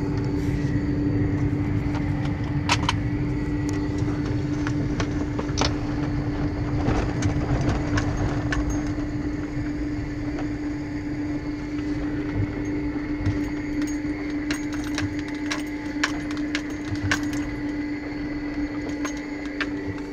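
Car driving, heard from inside the cabin: a steady low rumble of engine and road with a constant hum, and scattered small clicks and rattles.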